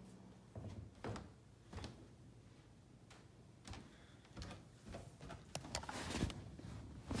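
Irregular soft knocks, thumps and rustling from someone moving about a house while carrying the camera, about a dozen in all and busiest around six seconds in.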